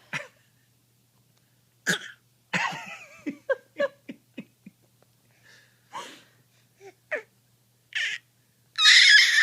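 Deliberate fake coughing: a string of short, forced coughs and breathy vocal bursts at uneven intervals, with a louder, longer burst near the end.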